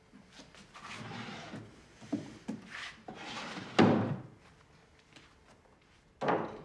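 Rummaging in a wooden sideboard: a drawer sliding and objects shuffled and knocked about, with a loud thud as it is shut about four seconds in, and another knock near the end.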